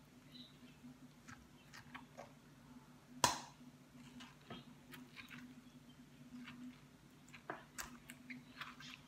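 Teaspoon scraping and digging out the soft flesh of round courgettes: small wet scrapes and clicks, with one sharper knock about three seconds in. A low steady hum runs underneath.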